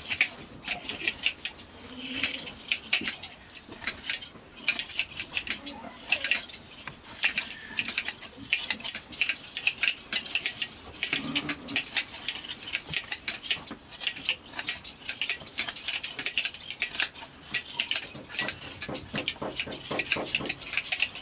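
Several pairs of hand shears snipping sheep's wool: rapid, irregular metallic clicks of the blades closing, overlapping one another.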